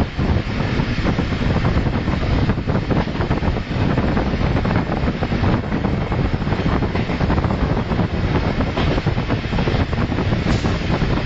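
Moving passenger train heard from an open carriage window: the steady rolling noise of wheels on rails, under heavy wind rushing over the microphone.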